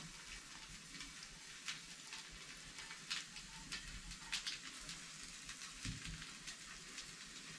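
Indian mackerel (bangda) frying in a little oil on a hot tava: a steady, low sizzle with scattered small pops and crackles.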